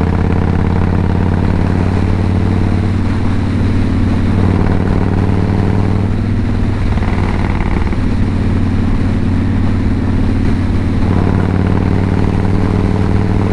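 Victory Hammer motorcycle's V-twin engine running steadily as the bike is ridden, its pitch shifting slightly a few times.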